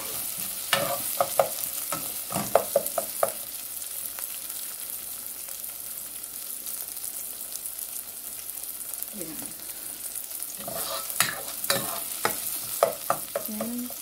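Chopped onion and garlic frying in olive oil in a saucepan, a steady sizzle. A spatula scrapes and knocks against the pan in two short spells of stirring, about a second in and again about eleven seconds in.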